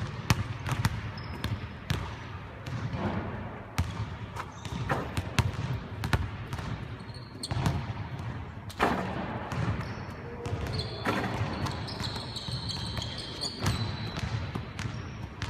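Several basketballs bouncing irregularly on a hardwood court and striking the rim and backboard, echoing in a large arena, with players' voices in the background.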